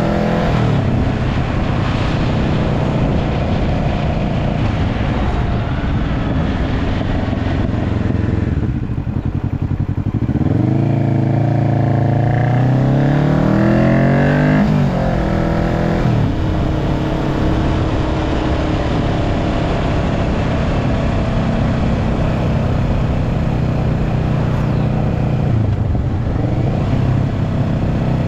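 Kawasaki Ninja 650's parallel-twin engine running through an aftermarket link pipe and slip-on muffler, revs climbing from about ten seconds in and dropping back about five seconds later, then holding steady.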